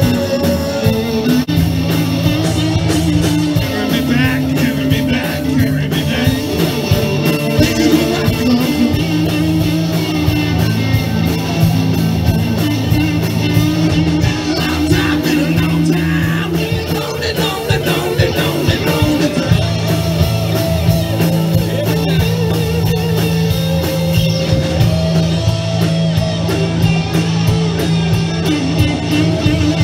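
A live rock band playing: electric guitars and a drum kit, continuous and loud.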